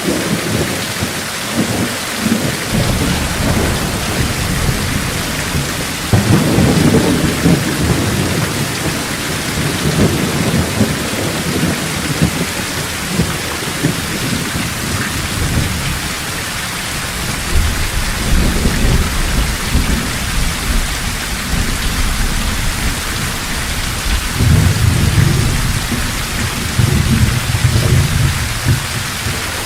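Heavy rain falling steadily in a forest, with thunder rumbling low and rolling several times, loudest about six seconds in and again near the end.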